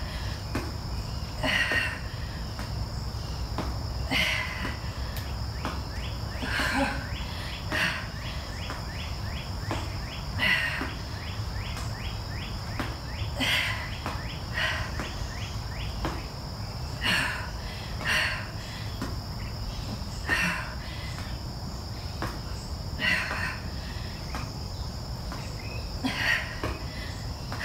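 Insects shrilling steadily at a high pitch, with a fast ticking trill joining in for a few seconds at a time, over a low steady hum. Short breaths come every one to three seconds from a person working through slow mountain climbers on a BOSU ball.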